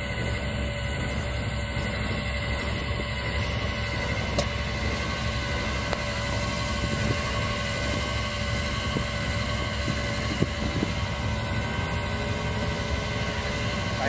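Tow truck's engine running steadily with a steady whine over it, and a low rumble of wind on the microphone.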